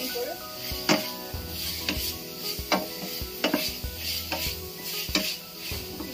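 Wooden spatula stirring diced chicken in a stainless steel frying pan: a scrape against the pan about once a second over a light sizzle.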